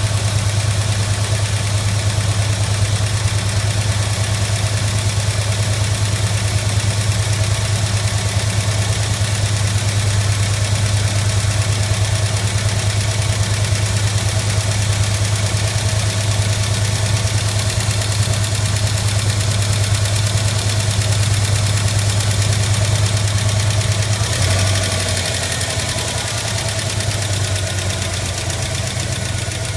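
Ford 351 Windsor V8 idling with a fast, steady ticking from the valvetrain, which the owner suspects is a sticking lifter. About 24 seconds in, the low engine tone shifts and the sound gets a little quieter.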